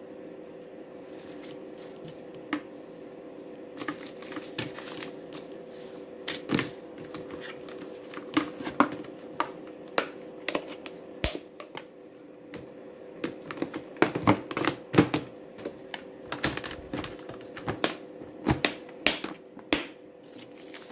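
Hard plastic clicks and knocks with rustling paper as seed packets are handled in a compartmented plastic organizer case and its lid is shut, over a steady hum.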